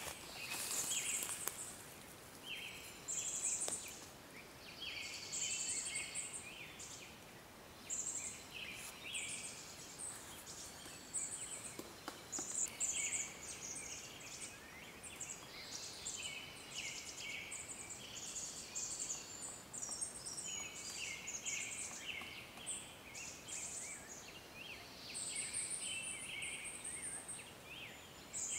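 Forest birdsong: short, high-pitched chirping phrases repeating every second or two over a faint steady hiss.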